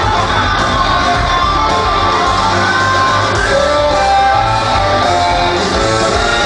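Live band playing a song through a concert PA system, with sung vocals over a steady bass and drum backing, heard with the echo of a large venue.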